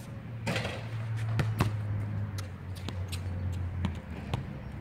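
Basketball bouncing on an outdoor hard court: about half a dozen sharp thuds at uneven gaps, the loudest about a second and a half in.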